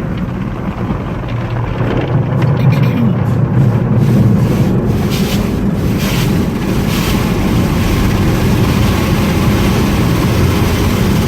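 Automatic car wash heard from inside the car: a steady rush of water spray and wash machinery against the car, getting louder about two seconds in.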